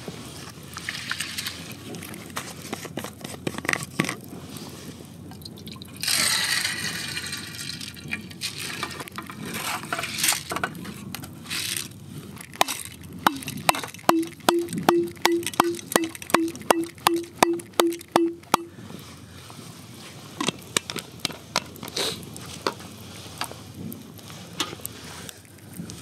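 Dry rice rattles as it is poured into an aluminium Trangia mess tin, about six seconds in. Later, water glugs out of an upturned plastic bottle into the tin in about a dozen regular gulps over four or five seconds, with light clinks of handling around it.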